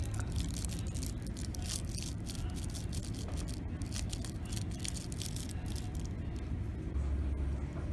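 A small dog chewing and worrying a plush toy: rapid scratchy rustling and clicking that thins out about six seconds in, over a low steady hum.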